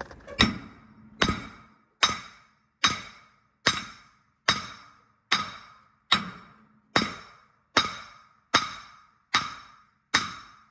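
Hammer blows on metal, about thirteen steady strikes roughly 0.8 s apart, each with a short metallic ring. The part being struck is a stuck part being driven loose.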